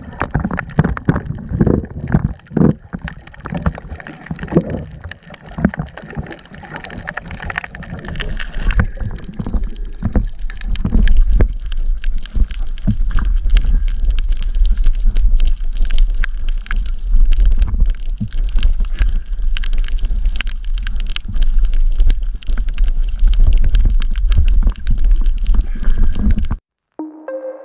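Underwater water noise picked up by a camera in a waterproof housing during a dive: irregular sloshing and rushing with many small clicks, and a steady low rumble from about a third of the way through. It cuts off abruptly near the end.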